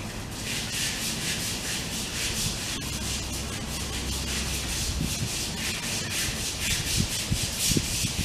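African spurred tortoise biting and chewing fresh grass: a dry, rasping crunch that comes in bouts of about a second.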